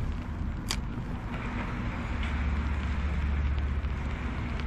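Heavy rain pouring down, a steady hiss over a low rumble, with one sharp tick under a second in.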